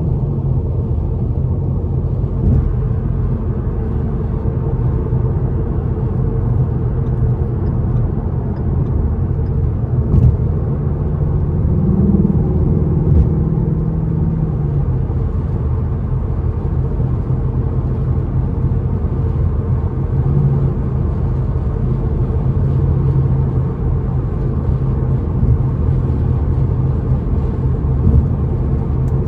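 Stock Ford Mustang GT's 5.0 V8 running through its factory exhaust with a steady low rumble as the car drives, with road noise. The engine note rises briefly about twelve seconds in.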